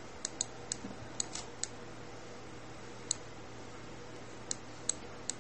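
Computer keyboard and mouse clicking: about ten short, sharp clicks at irregular intervals, most in the first second and a half and a few scattered later, over a faint steady hiss.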